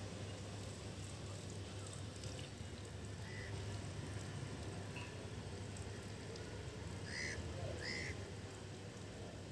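Outdoor ambience: a steady low hum with a few short bird calls, two of them close together near the end.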